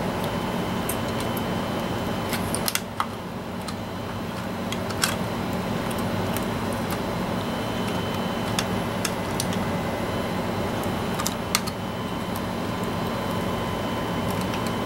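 Scattered light clicks and snaps of plastic push-pin fasteners on a stock CPU heatsink being forced through a motherboard's mounting holes and locked in, over a steady background hum.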